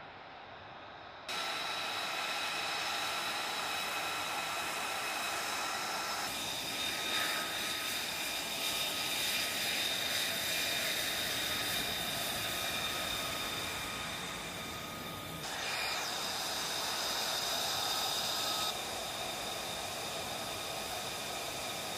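F-35B's Pratt & Whitney F135 jet engine running at low power on the ground: a steady whine of several high held tones over a rushing hiss. The sound starts abruptly about a second in and shifts suddenly in pitch and level a few times.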